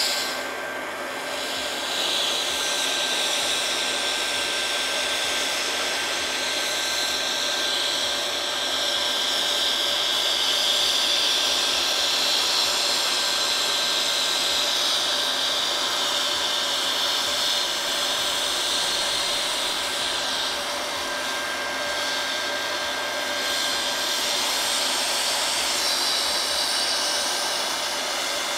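Hot-air plastic welding gun blowing steadily: a constant hiss of hot air with a faint steady whine, as HDPE welding rod is melted and pressed into an inside corner seam of a plastic tank.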